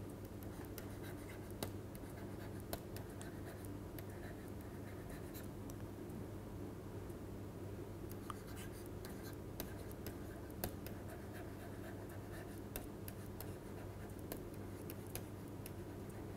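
Stylus tapping and scratching on a tablet PC's screen while handwriting: a scatter of faint short clicks over a steady low electrical hum.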